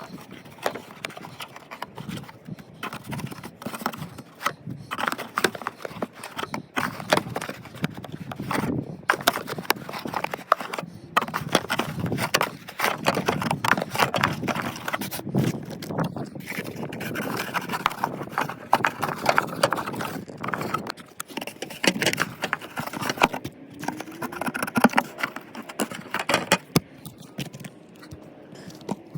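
Dryer vent cleaning brush knocking and scraping inside the vent duct: a dense, irregular run of clattering knocks.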